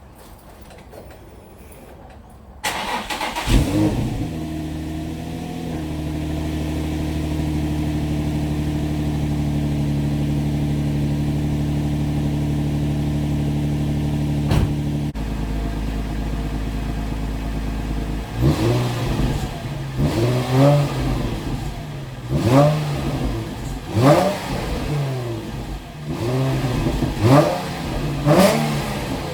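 A 2005 Nissan 350Z's 3.5-litre V6 (VQ35DE), fitted with HKS Hiflow high-flow catalytic converters, starts about three seconds in and settles into a fast cold idle. The idle drops lower about halfway through, then the engine is blipped in a string of short revs, one roughly every second and a half, to the end.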